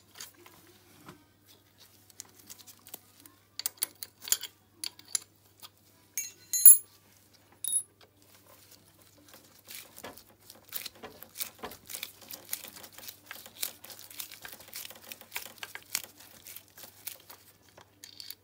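Metal hand tools clicking and scraping on a small Honda-clone moped engine as the bolt at the base of the cylinder is worked loose. There is a sharp metallic clink that rings briefly about six and a half seconds in, then a second smaller ping. Through the second half comes a dense run of quick clicks and scrapes as a screwdriver works at the bolt.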